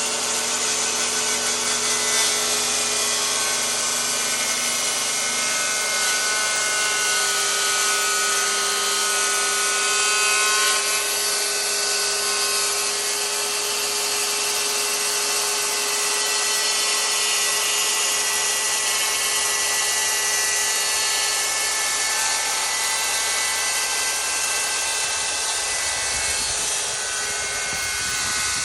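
Circular saw running steadily under load as it cuts through wood, pivoting on a circle-cutting jig.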